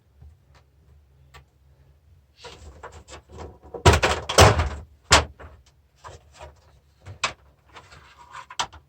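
Plastic housing of a Flymo Garden Vac being pried and pulled apart by hand: scraping and creaking, a run of loud cracks and knocks about four to five seconds in, then a few sharp clicks as the plastic pieces come free.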